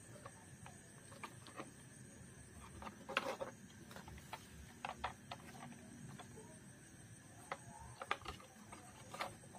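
Hard plastic toy cars handled in a cardboard box: scattered light clicks and knocks of plastic, with a small cluster about three seconds in and a few more near the end.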